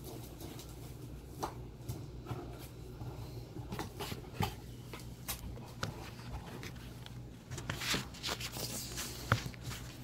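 Puppy chewing and tearing at a cardboard box: scattered crinkly rips, scrapes and taps of cardboard, busier near the end, over a steady low hum.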